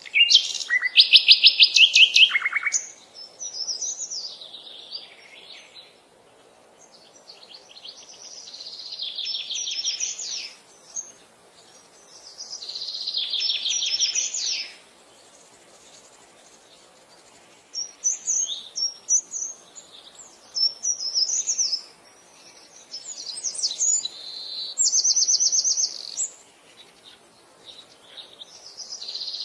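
Songbirds singing: repeated phrases of rapid, high trilled notes, each lasting one to three seconds, coming every few seconds over a faint steady background.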